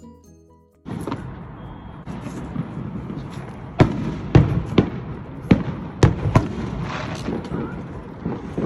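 A run of fireworks going off: sharp bangs and pops, about eight loud ones in quick succession in the middle, over a steady outdoor hiss. Piano-like music cuts off just before the bangs begin.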